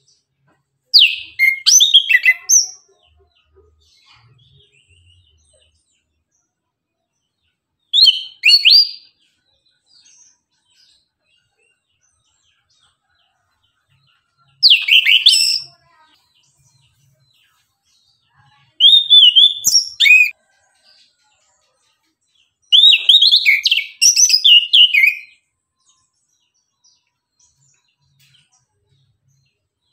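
Chestnut-capped thrush (anis kembang) singing: five short bursts of rapid, varied chirping and warbling phrases, separated by pauses of a few seconds.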